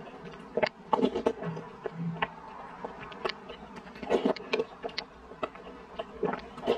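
Close-miked eating sounds: blowing on a spoonful of soup, then slurping and chewing a soft, sticky glutinous rice ball, with many short wet mouth clicks and smacks, densest about four seconds in.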